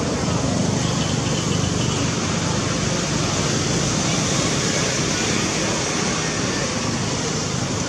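Steady, even background noise with no distinct sound standing out.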